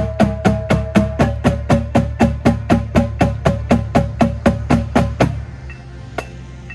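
Drum corps battery (snare drums, tenor drums and bass drums) playing steady unison strokes at about four a second, stopping abruptly about five seconds in. After that only faint, evenly spaced ticks remain, with one sharper click near the end.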